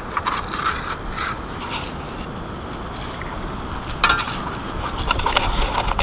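Long-handled sand scoop digging into wet sand and beach stones: a run of short scrapes and clattering rocks, louder and busier from about four seconds in.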